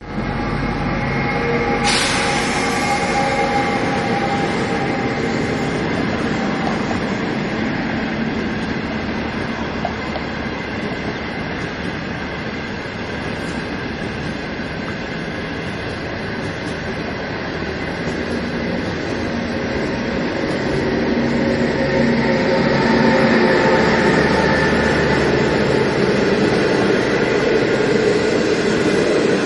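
Locomotive-hauled passenger train passing close by, its coaches' wheels running steadily on the rails. The noise grows louder in the last third.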